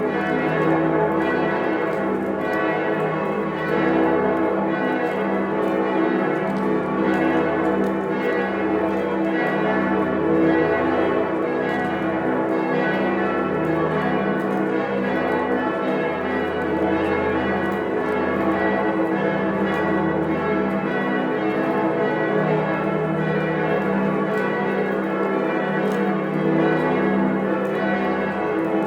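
Many church bells ringing together in a full peal. Their strokes overlap into one continuous, dense ringing with slow swells in loudness.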